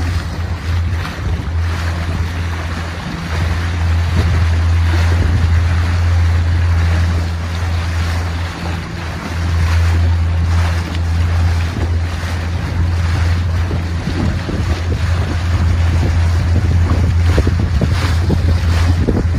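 A moving boat's motor droning steadily low, with water rushing and splashing along the hull and wind buffeting the microphone. The drone dips briefly about halfway through.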